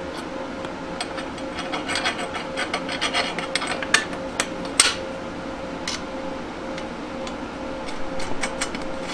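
Small metal clicks, rattles and scrapes of bolts being worked by hand into the hub of a steel wheel rim. They are busiest in the middle, with two sharper clicks about four and five seconds in, over a steady faint hum.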